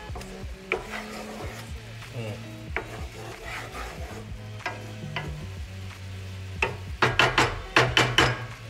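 Butter pan sauce sizzling in a cast-iron skillet while a wooden spoon stirs and scrapes the pan. Near the end comes a quick run of louder scrapes and taps.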